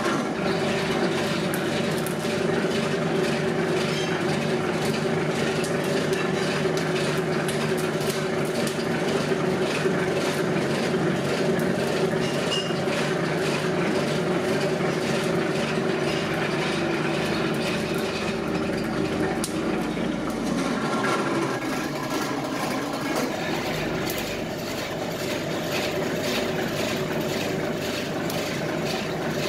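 Two-roll rubber mill running steadily: a geared drive turns the steel rollers with a constant mechanical hum and many small clicks while silicone rubber compound is milled into a sheet. It gets a little quieter about two-thirds of the way through.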